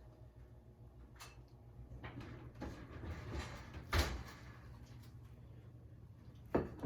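Quiet eating sounds from biting into and chewing a crispy fried chicken and waffle slider: soft crunching, with a sharp knock about four seconds in and another near the end.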